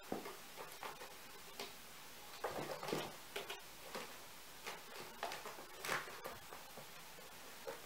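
Kittens scrambling and play-fighting on a carpeted cat tree: irregular soft thumps, taps and claw scratches, with a cluster of knocks about three seconds in and a sharper knock near six seconds.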